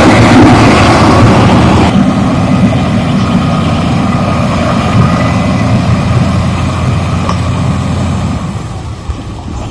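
Backhoe loader's diesel engine running, loud for the first two seconds, then a lower steady rumble that eases off near the end.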